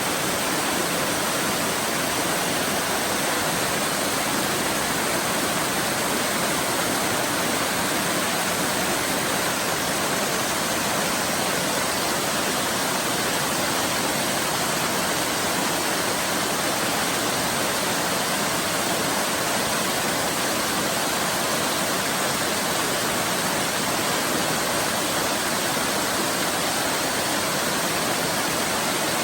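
Waterfall: steady rush of falling water, an even hiss with no breaks or changes.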